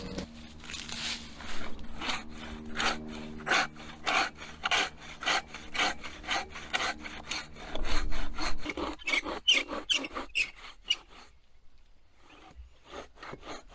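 Hand saw cutting through a log in quick, regular back-and-forth strokes, about two to three a second. It pauses briefly near the end, then starts again.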